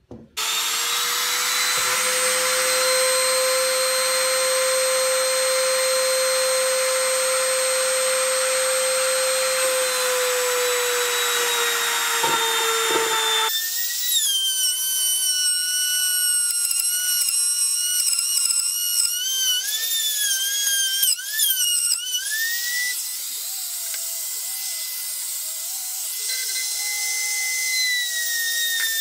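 Compact trim router running at high speed with a steady, high whine. About halfway through the whine changes abruptly, its pitch dipping and wavering as the bit cuts into the pine board.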